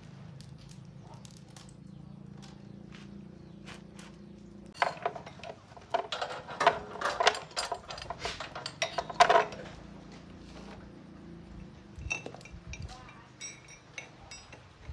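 Metal parts and tools clinking and knocking during repair work. Scattered clinks at first, then a dense run of louder clinks from about five to nine and a half seconds in, then a few lighter ticks near the end. A low steady hum runs underneath through the first third.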